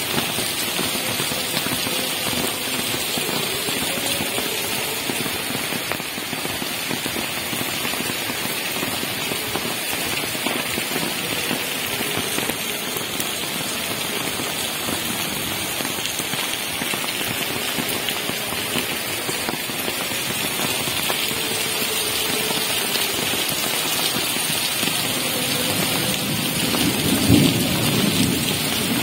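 Heavy rain pouring steadily onto pavement, cars and puddles. Near the end a low rumble of thunder swells up.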